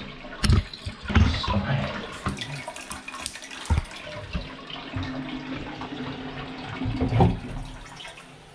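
Toilet water running on without stopping, the push-button flush stuck so the cistern keeps flowing into the bowl, with several sharp clicks and knocks of a pocket knife prying at the wall-mounted flush plate.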